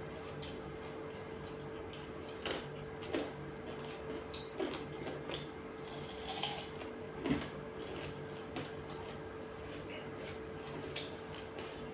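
Close-up eating sounds: scattered wet smacks and chews of rice and curry eaten by hand, with a crunch of teeth biting into a raw onion about six seconds in. A steady hum runs underneath.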